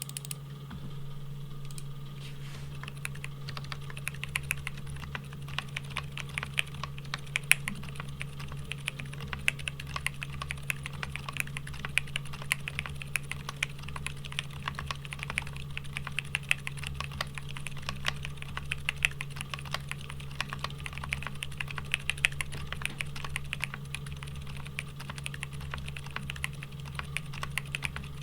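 Continuous typing on a Geonworks F1-8X V2 mechanical keyboard in a silent build: factory-lubed Haimu x Geon Yellow silent tactile switches in a brass plate, with GMK Striker keycaps. The keystrokes come in a fast, even stream of soft clicks over a steady low hum.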